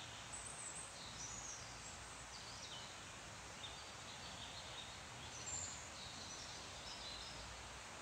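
Songbirds chirping and twittering in many short, high calls over a steady, even rushing noise like trees rustling in wind.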